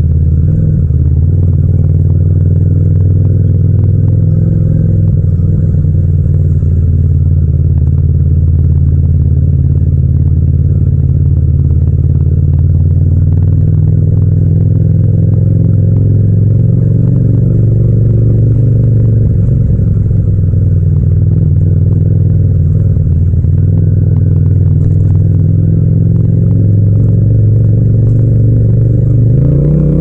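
Yamaha MT-07's 689 cc parallel-twin engine running steadily at low, even revs while riding slowly in traffic. Right at the end the revs rise as it accelerates.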